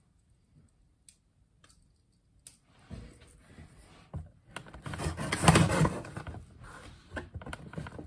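After about two seconds of near silence, clicks and handling noise as a pocket knife comes to the box. Then the blade scrapes and slices along the top seam of the cardboard box, loudest about halfway through.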